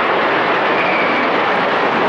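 Low-flying military aircraft passing overhead, their engines making a loud, steady drone.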